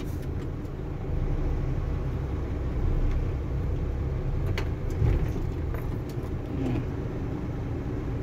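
Isuzu 6HH1 six-cylinder diesel truck engine idling steadily, heard from inside the cab while the gear lever is worked into second gear. A couple of sharp clicks come about halfway through.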